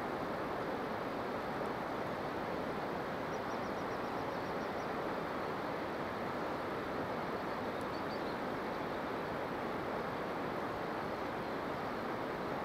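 Steady, even rushing outdoor background noise with no distinct event, and a short faint high trill a few seconds in.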